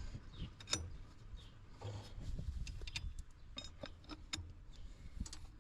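Faint handling noise with a few sharp, scattered metallic clicks: a roller drive chain being worked onto the sprockets of a planter's liquid fertilizer pump while the sprocket is turned by hand.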